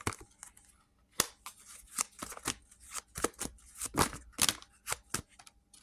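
Tarot cards being shuffled and handled: an irregular string of sharp, crisp snaps and clicks as the cards riffle and strike one another.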